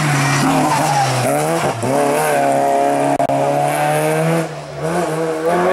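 Hill-climb racing car's engine at high revs, pulling hard with a brief dip in revs early on, then backing off and going quieter about three-quarters through before picking up again near the end, with tyres squealing.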